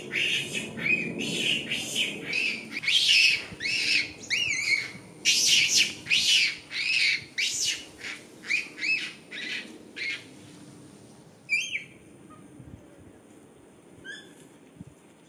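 Rhesus macaques screaming in a squabble: a rapid run of loud, high calls, each rising and falling in pitch, for about ten seconds, then a few scattered calls near the end.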